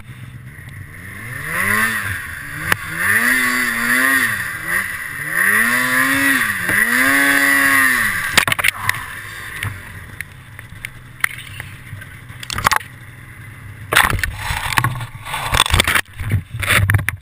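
Polaris Assault two-stroke snowmobile engine revving up and down in several rising and falling blips, then sharp knocks and scraping about eight seconds in as the sled hits a tree. The engine is no longer heard after that; scattered knocks and rustling follow, loudest near the end.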